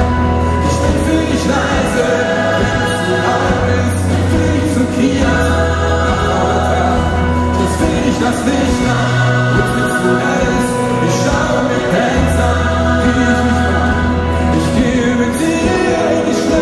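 Live pop-rock band performing with a gospel choir: a male lead vocal and electric guitar over long held bass notes, with the choir singing along.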